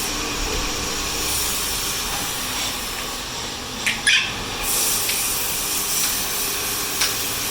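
A machine running steadily, with a few sharp clicks about four seconds in and one near the end.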